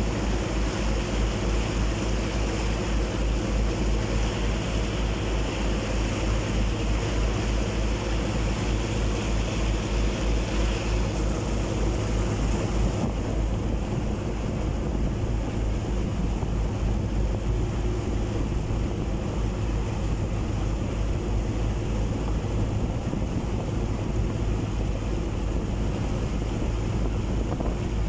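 Boat engine running steadily with a low throb, under the rushing of water churned up in the propeller wake and wind buffeting the microphone; the high hiss eases about halfway through.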